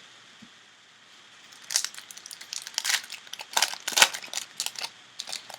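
Wrapper of a 2013 Panini Rookies & Stars football card pack being torn open and crumpled: a quick run of crinkles and crackles starting about a second and a half in.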